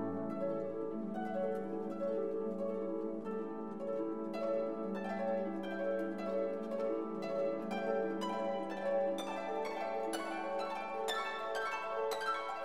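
Background music: plucked notes over held tones, the plucked notes coming thicker and brighter in the second half.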